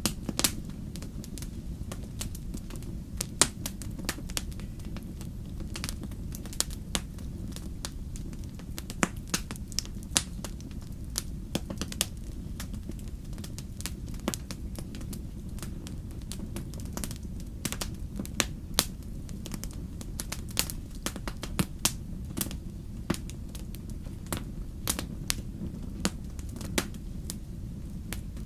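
Wood campfire crackling: irregular sharp pops and snaps, some much louder than the rest, over a steady low rumble of the burning fire.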